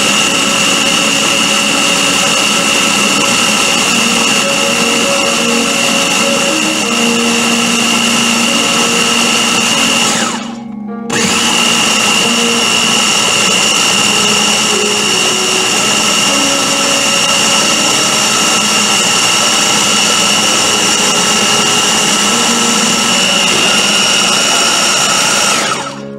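Ninja blender's top-mounted motor running steadily with a high whine as it purees a thick oat and milk mixture. It stops for under a second about ten seconds in, starts again, and cuts off near the end.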